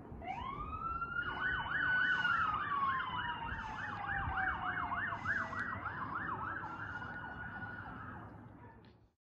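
Fire truck siren sounding. A wail climbs at the start and then slowly falls, while a fast yelp sweeps up and down about four times a second over it for several seconds. Near the end the wail climbs again, and the sound cuts off abruptly.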